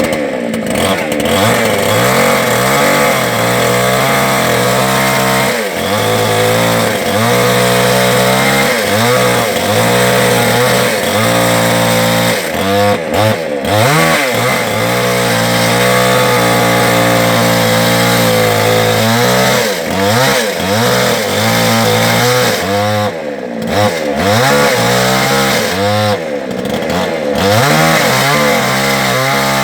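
Two-stroke chainsaw running through wood, its engine pitch repeatedly dropping under load as the chain bites and rising again as it frees up.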